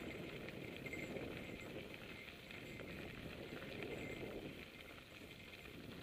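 Mountain bike rolling along a dirt singletrack: a steady crunching, rattling noise from the tyres on the packed dirt and gravel and from the bike's frame.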